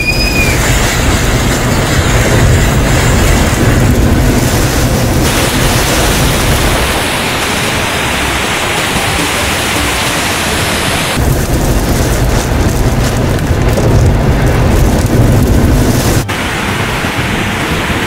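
Heavy storm rain and gusting wind blasting the microphone, its character changing abruptly several times as one phone recording cuts to the next; in the last couple of seconds, the rush of a fast brown floodwater torrent.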